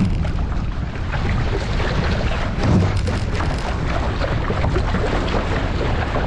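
Water rushing and splashing along the hull of an RS600 sailing dinghy under way, with wind buffeting the microphone. The buffeting swells briefly about three seconds in.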